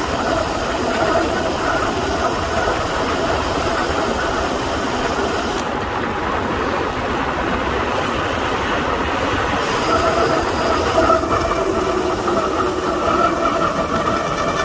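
Road bike disc brakes squealing with a steady two-note tone during a fast descent, over wind rushing across the microphone. The squeal fades in the middle and is strongest in the last few seconds.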